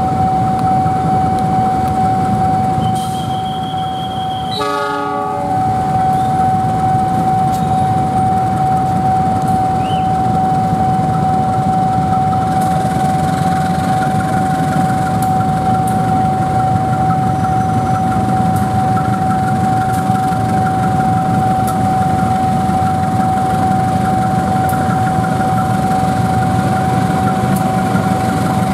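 A diesel locomotive's engine rumbles as it pulls a passenger train out toward a level crossing, with a short horn blast about five seconds in. A steady electronic warning tone from the level-crossing alarm sounds throughout.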